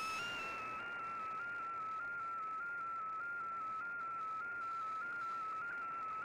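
Shortwave MFSK picture transmission heard through a communications receiver: a single whistle-like tone that wavers up and down in small steps over steady background hiss, its pitch carrying the brightness of the image being sent. A fainter higher tone fades out within the first second.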